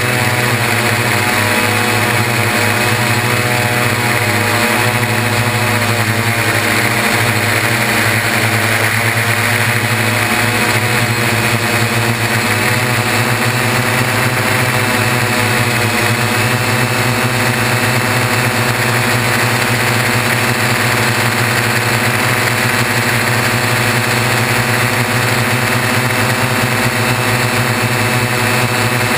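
Six electric motors and propellers of a Y6 coaxial multirotor droning steadily, heard close from right on the frame. The pitch wavers slightly as the throttle changes.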